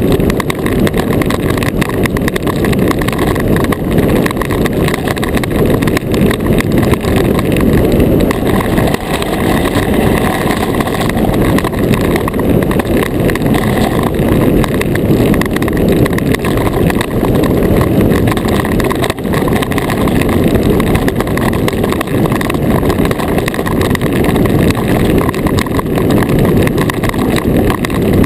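Iceboat runners sliding fast over hard, clear lake ice, picked up through the hull as a loud, steady rumble.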